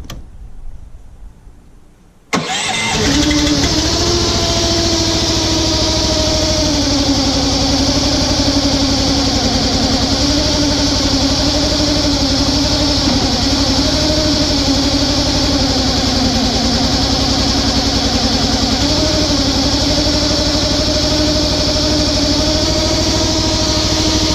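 Engine of a Struck Magnatrac RS1000 compact track loader starting up about two seconds in and then running steadily at high speed, its pitch dipping slightly now and then.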